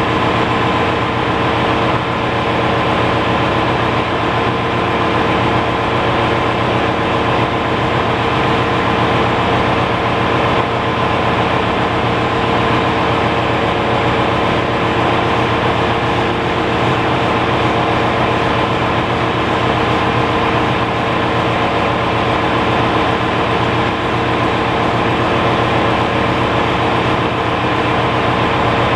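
Ship's engine-room machinery running, a loud constant drone with steady humming tones and no change in pitch.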